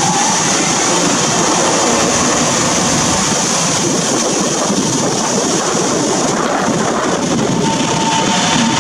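Taiwan Railways electric multiple unit pulling out of the station: a loud, steady running noise of wheels on rail and running gear. A thin high whine shows briefly at the start and again near the end.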